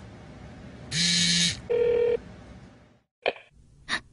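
Telephone ringing with an electronic two-part ring: a buzzy burst about a second in, then a steady tone of about half a second. Near the end come two short clicks as the call is picked up.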